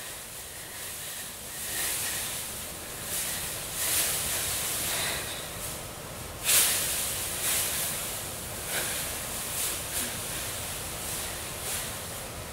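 A performer's breath sounds: sharp, hissed exhales in uneven bursts every second or two, the loudest about six and a half seconds in.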